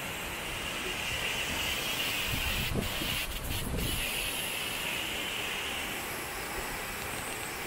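Tall waterfall plunging down a rock face: a steady rushing hiss of falling water and spray, with a brief low rumble about halfway through.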